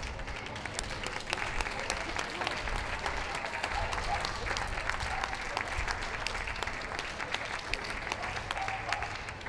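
Audience applauding: a steady, dense patter of many hands clapping that swells just after the start and fades near the end.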